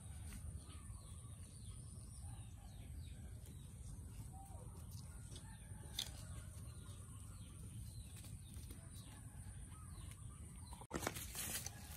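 Outdoor ambience of birds chirping in short falling calls over a steady high hum and a low rumble. A brief cut-out near the end is followed by a burst of rustling noise.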